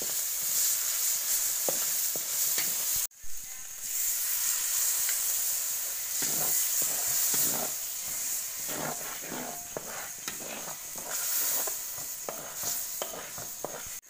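Quail sizzling as it cooks, a steady hiss, with scattered clicks and knocks of a utensil stirring it in the second half. The sound drops out briefly about three seconds in.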